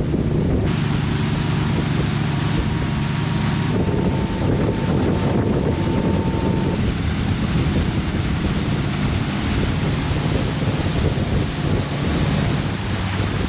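A small boat's engine running with a steady low hum, under loud wind noise on the microphone and the rush of water.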